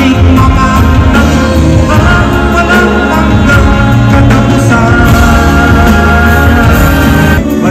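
Live band music with male vocals: drums, guitar and keyboards playing under singers, loud amplified concert sound.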